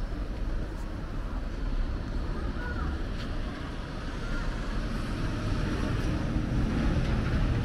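Busy street ambience: a steady low rumble of road traffic, with a couple of faint short chirps near the middle.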